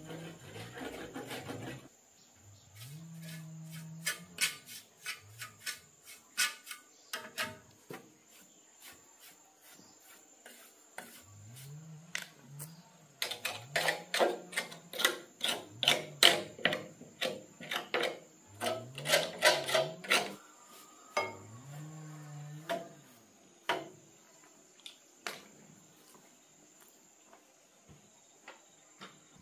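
Hand work on the metal housing of an electric banana chopper: rapid clicking and scraping in bursts, densest and loudest in the middle, then sparse taps toward the end.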